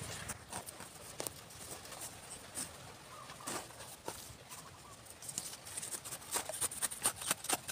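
Hands scraping and patting dry, crumbly soil while a plastic pipe trap is pressed into a hole: a run of short scrapes and clicks that comes thicker and louder near the end.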